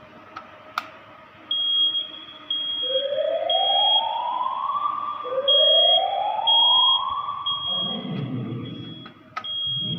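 Building fire alarm sounding: a high beep repeating about once a second, overlaid twice by a siren tone that sweeps upward in a whoop. Near the end a rougher, lower noise joins in.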